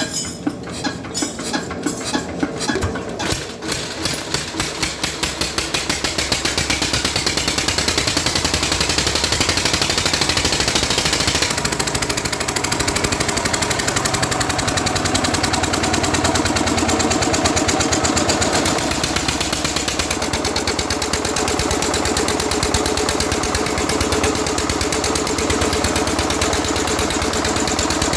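Usha 16 HP single-cylinder diesel engine running up to speed: separate firing beats about three a second at first, quickening over the first few seconds, then a steady, fast thudding run.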